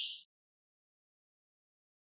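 The last high notes of a European goldfinch's song, fading out within the first quarter second, followed by silence.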